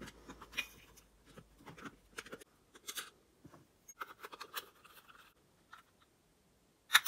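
Plastic casing of a battery watering timer handled and fitted together by hand: scattered light clicks, scrapes and rubs as the faceplate goes on and the wires are tucked in, with one sharper click near the end.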